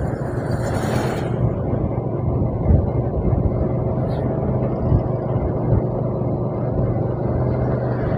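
Steady engine hum and road and wind noise from a moving vehicle, heard on board, with a brief rush of noise about a second in.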